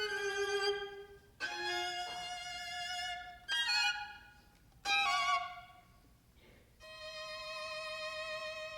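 Solo violin playing unaccompanied: sustained notes with vibrato, broken by short pauses, with two brief louder notes near the middle and a long held note through the last couple of seconds.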